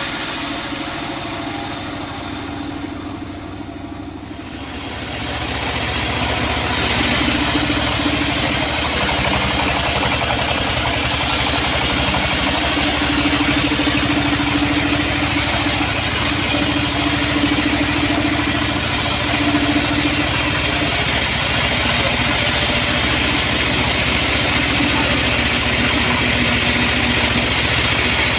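Homemade sawmill bandsaw running steadily under engine power. About five seconds in the sound grows louder and fuller, then holds steady.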